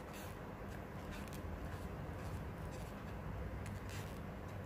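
Faint rustling and soft ticks of a steel crochet hook drawing cotton yarn through loops while making a foundation chain, over a low steady hum.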